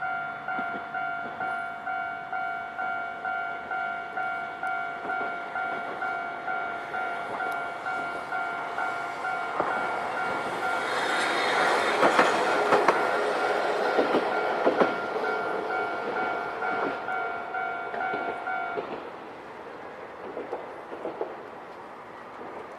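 Level-crossing warning alarm ringing in a steady two-tone pulse, about two strokes a second, stopping about 19 seconds in. From about 10 seconds in a Hankai Tramway tram passes over the crossing, its wheels clacking over the rail joints, loudest around the middle, then fading.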